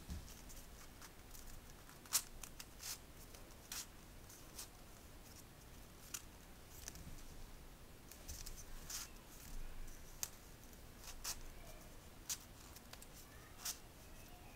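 Origami paper handled and creased by hand on a tabletop: faint rustling with scattered sharp paper snaps and clicks, about a dozen at irregular intervals, as folded modules are fitted together.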